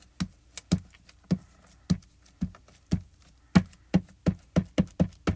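A plastic-cased Versamark ink pad tapped repeatedly through a plastic stencil onto cardstock, dabbing on sticky clear ink. The taps come about two a second at first and quicken to three or four a second in the second half.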